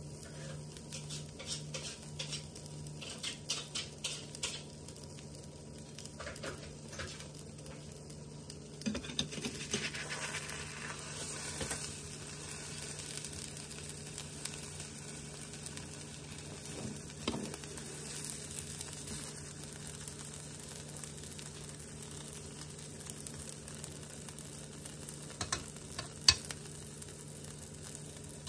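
Omelette frying in a nonstick pan: a steady faint sizzle with small crackles, and a plastic spatula scraping under the egg and folding it over about ten seconds in. A few sharp knocks of the spatula on the pan near the end.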